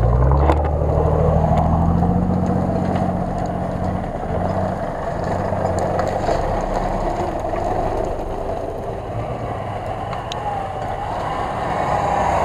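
Off-road SUV engine pulling under load as the vehicle crawls over a log. The engine note rises over the first couple of seconds, then holds steady.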